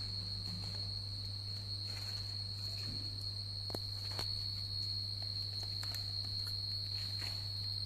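A few light taps and clicks as a kitten's paws and claws knock against a metal cooking pot, over a steady high-pitched whine and a low hum.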